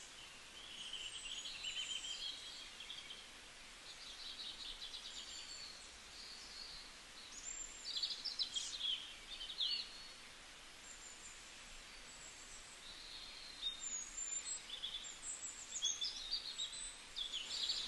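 Small birds chirping and singing in quick, repeated high notes over a steady background hiss, with the busiest bursts of song about halfway through and near the end.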